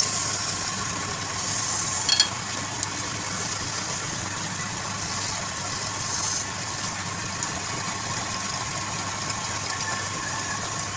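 Woodturning lathe running with a steady motor hum. A few sharp knocks come about two seconds in, and there are brief swells of high hiss.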